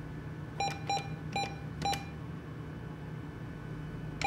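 ATM keypad beeping as its keys are pressed: four short beeps of the same pitch about half a second apart, then one more near the end, over a steady low machine hum.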